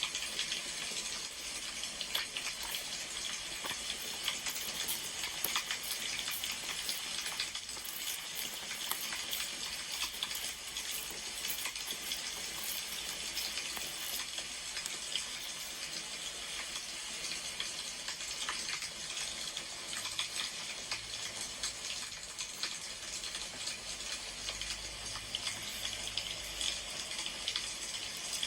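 Wood fire crackling: a steady hiss scattered with many small pops and clicks.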